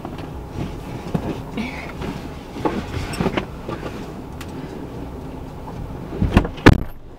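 Someone moving around on a car's leather seats while climbing into the driver's seat: rustling and scattered light knocks over a low steady rumble, with two heavier thumps about six seconds in.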